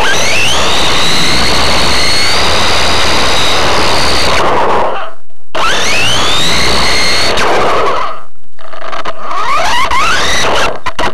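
Electric RC car's motor whining, its pitch climbing steeply and then levelling off as the car accelerates. This happens three times, with two short near-silent breaks where the throttle is let off, about five and eight and a half seconds in. Rough wind and road noise sits on the onboard camera throughout.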